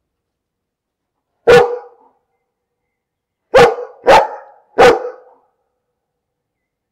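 A dog barking four times: one bark about a second and a half in, then three quick barks close together about two seconds later, with silence between them.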